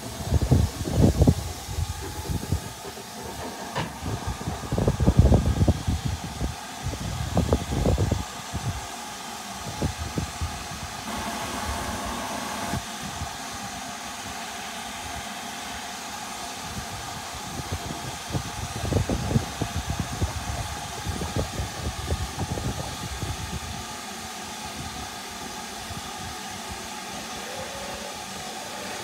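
Stationary LMS Jubilee class steam locomotive 45627 'Sierra Leone' hissing steadily from its open cylinder drain cocks. Irregular low rumbling bursts come and go over the hiss, loudest in the first few seconds.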